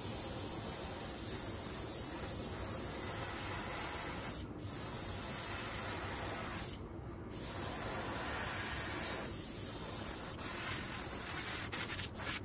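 Iwata Eclipse airbrush spraying thick acrylic paint: a steady hiss of air, breaking off briefly about four and a half seconds in and again for about half a second around seven seconds.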